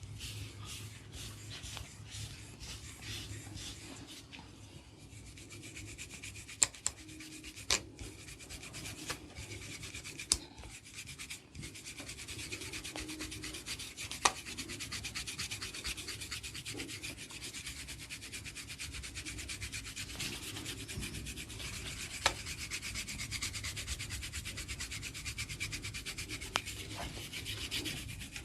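Hands rubbing and scratching an oiled scalp and hair in quick, even strokes. Six sharp cracks stand out above the rubbing, the loudest sounds here.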